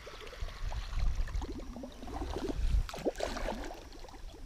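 Water sloshing and lapping around a small fishing boat, over the low rumble of wind on the microphone. About three seconds in there is a louder splash near the boat as a musky swirls after a topwater frog lure.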